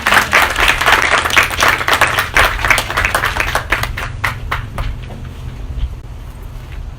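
Audience applauding a speaker being welcomed, dense clapping that thins out to a few last scattered claps about five seconds in.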